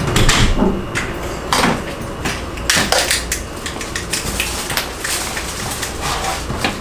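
People coming in through a room door: plastic bags rustling and keys jingling, with many small clicks and knocks from handling and steps.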